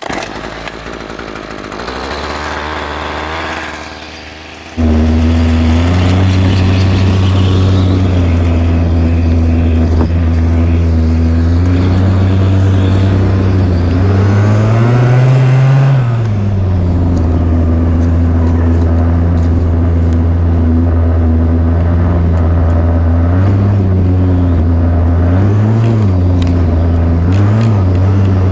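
Small two-stroke weedeater engine fitted to an RC truck, coming in loudly about five seconds in and idling steadily, revving up and back down about halfway through, then blipped three times near the end.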